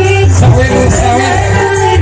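Loud live stage band music with a heavy bass line and a singer's voice carrying the melody.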